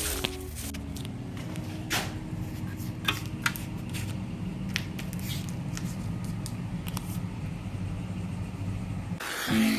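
An engine running steadily with a low hum, with a few sharp clicks and taps over it. Music starts near the end.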